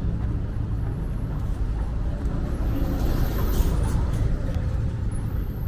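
A motor vehicle engine running steadily with a low rumble, mixed with roadside noise.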